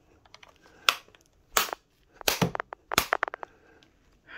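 Sharp plastic clicks and knocks from a graphing calculator being worked out of its hard slide-on cover: four or five distinct snaps, with a run of lighter ticks about three seconds in.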